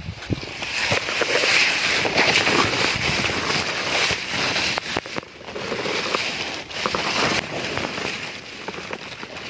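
Water sloshing and splashing, with scattered knocks and rustling.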